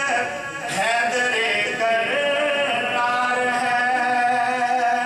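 A man's voice singing verse unaccompanied in a melodic chant, with long held, slightly wavering notes.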